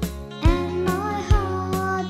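Background music: a song with a steady beat, about two strokes a second, under a melody line.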